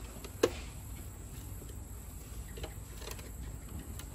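Handling noises from a pool cleaner's plastic filter frame as a fabric filter bag is worked over it: one sharp click about half a second in, then a few faint taps.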